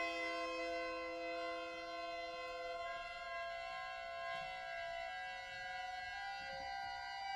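Soft, held chord of several steady pitches from a contemporary chamber ensemble with solo accordion. The lowest note drops out about three seconds in, and the remaining notes move to new pitches, leaving a thin, quiet sustained sound.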